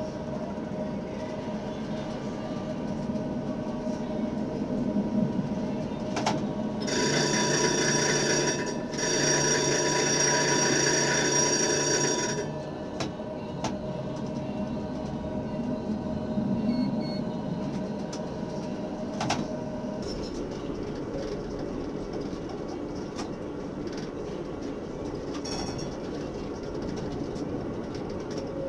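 A tram running along its track, a steady rolling rumble with a faint whine under it. About seven seconds in, a loud high-pitched tone with several notes sounds for about five seconds, with a brief break near the middle.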